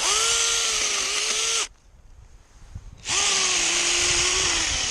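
Drill Pro cordless mini chainsaw's electric motor and chain running in two bursts, a steady high whine that stops about a second and a half in and starts again about three seconds in.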